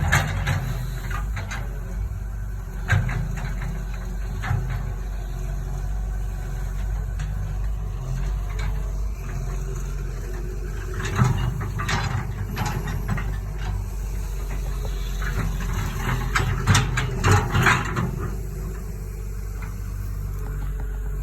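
Cat 315 LC excavator's diesel engine running steadily, with scattered sharp knocks and clanks, several in a row about halfway through and again near the end.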